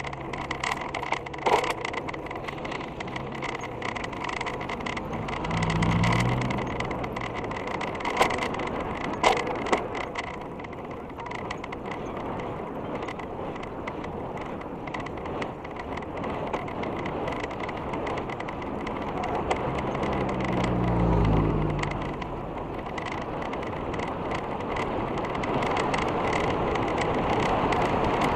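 Mountain bike rolling on a concrete road, heard close up from the bike: steady tyre and wind noise with scattered rattles and clicks. A motor vehicle passes about six seconds in and another about twenty seconds in, each engine dropping in pitch as it goes by.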